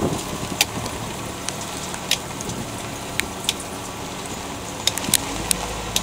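Steady hiss of light rain, with a handful of sharp, single taps of drops landing close by.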